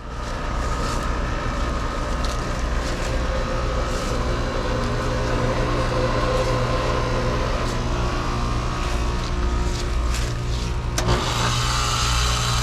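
2010s Rheem Classic heat pump outdoor units running with a steady compressor hum and rushing noise, with scattered light ticks and one sharp click about eleven seconds in.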